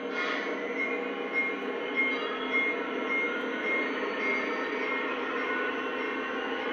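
A Lionel O-gauge model diesel locomotive's electronic sound system plays a steady engine hum, with a high bell-like chime repeating about twice a second. A short hiss of air comes at the very start.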